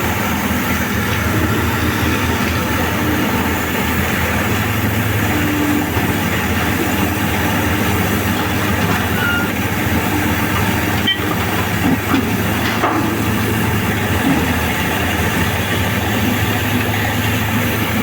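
Heavy mining machinery engine running steadily, with a few brief knocks about eleven and thirteen seconds in.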